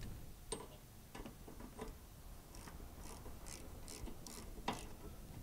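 Light, irregular metallic clicks and taps, about a dozen, from hands working an oil-line fitting on an oil cooler. The sharpest click comes near the end.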